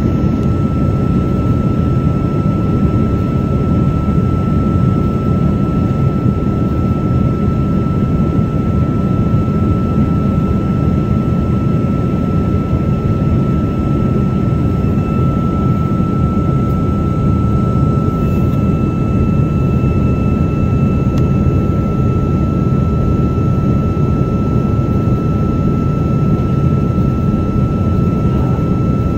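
Steady jet aircraft noise in flight, heard from on board the tanker: a constant low roar with a thin steady whine above it, joined by a second, higher whine about two-thirds of the way through.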